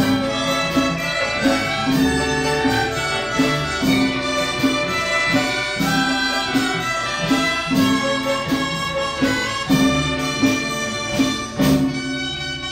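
A Chinese orchestra ensemble playing a lively tune with a steady beat: plucked pipa and struck yangqin together with bowed erhu and dizi flute.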